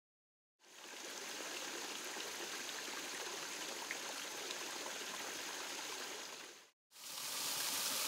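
Steady splashing of a small rock waterfall spilling into a garden pond, fading in after a moment of silence. Near the end it cuts out briefly and gives way to a brighter, slightly louder rush of falling water.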